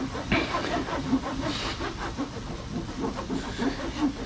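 Terry cloth rubbed in small circles over a boat's textured non-skid gel coat, a scratchy rubbing, as an acid water spot remover is worked in to lift rust stains.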